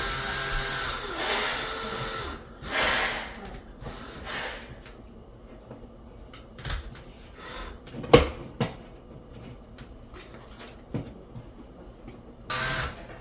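Power drill driving screws to fasten an electrical box closed: a run of about two seconds at the start, a short burst about three seconds in and another near the end, with a sharp knock about eight seconds in.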